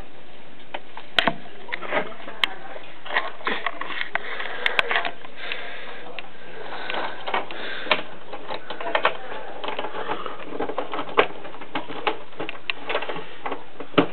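Irregular light clicks, taps and scratches from a homemade hamster cage, over a steady hiss.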